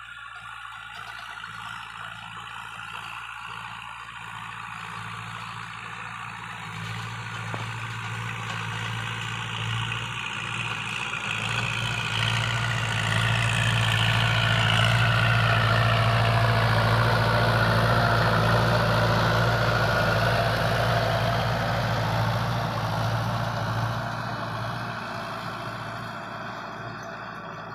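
Kubota L5018 tractor's diesel engine running under load while its rear rotary tiller churns dry paddy soil. The sound grows louder as the tractor comes close, about halfway through, and fades as it moves away. A whine in it drops in pitch as the tractor passes.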